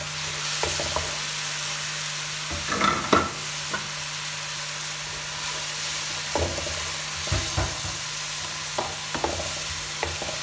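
Chopped green bell pepper, onion and tomato sizzling in oil in an aluminium pan, with a steady frying hiss. A wooden spoon knocks and scrapes against the pan now and then as the vegetables are stirred, loudest about three seconds in.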